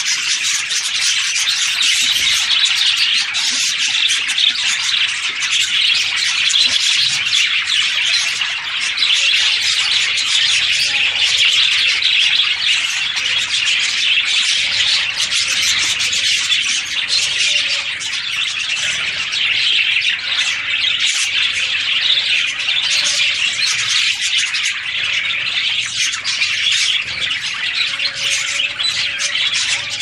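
Budgerigars chattering without pause, a dense mass of overlapping chirps and warbles.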